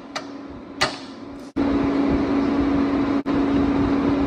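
Two short metallic clicks from a steel tool against the slewing ring. About a second and a half in, a loud, steady machine hum with a low tone starts abruptly and runs on.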